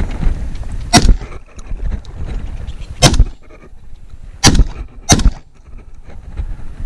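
Four shotgun shots, the first about a second in and the last two about half a second apart, with wind noise between them.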